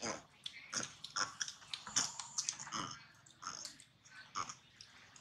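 Macaque chewing and biting food: irregular crunching and smacking clicks, several a second.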